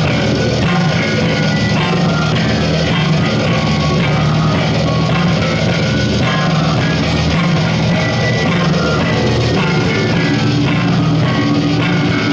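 Live rock band playing a loud, unbroken passage on electric guitars and drum kit.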